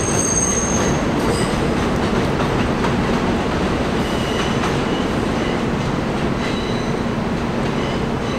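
NYC Subway trains running on elevated track curves: a steady rumble of wheels on rail, easing slightly. A high wheel squeal comes in the first second, and shorter, fainter squeals follow midway and near the end.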